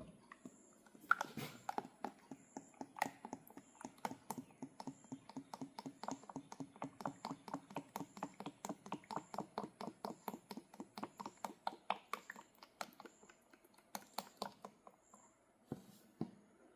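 Motor oil glugging out of a bottle as it is poured into the mower engine during an oil change. It is a quick, even run of about five glugs a second that stops near the end, followed by a couple of light knocks.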